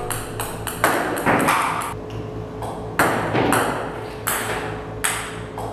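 Table-tennis balls clicking on a table-tennis table in quick, irregular succession, several hits a second, over a steady low hum.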